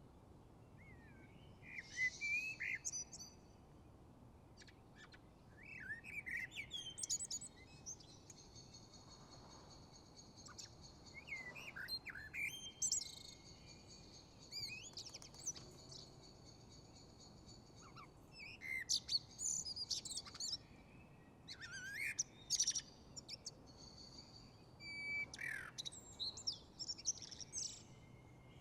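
Songbirds singing and chirping in phrases every few seconds, with high sliding notes and some longer trills, over a faint steady low background rumble of the city.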